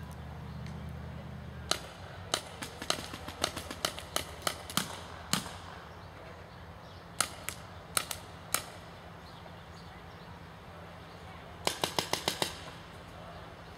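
Paintball markers firing: a dozen or so irregular pops over a few seconds, then three single shots, then a quick burst of about seven shots near the end.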